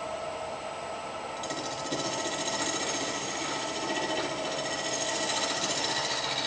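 Wood lathe running while a gouge cuts the outside of a spinning bowl blank: a steady motor whine under the hiss of the cut, growing slightly louder after about a second and a half.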